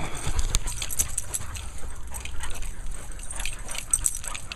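A dog playing close to the microphone: irregular rustling and clicking over a low rumble.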